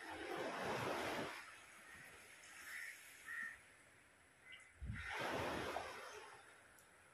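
Two swells of rushing surf as waves break on the shore, one at the start and one about five seconds in. A crow caws twice briefly between them.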